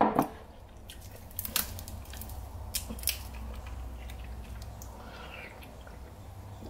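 A glass bowl knocked and slid on a wooden tabletop, then a few sharp clicks and crinkles as a plastic water bottle is handled and its cap twisted open, over a steady low hum.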